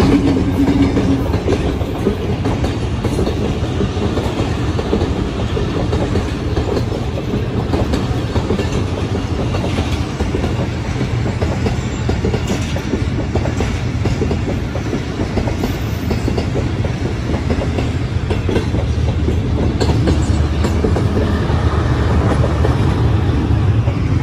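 Motorcycle riding at road speed: a steady engine and road rumble mixed with wind noise on the microphone.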